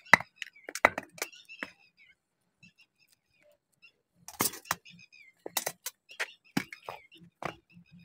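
Irregular sharp clicks and taps in two bunches, one at the start and one from about halfway through, with faint chirping of small birds between them.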